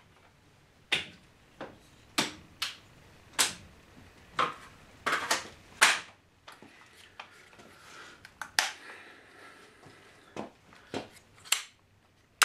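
Irregular sharp metallic clicks and knocks from an AR-15 rifle being handled, its parts snapping and tapping against each other, about a dozen in all.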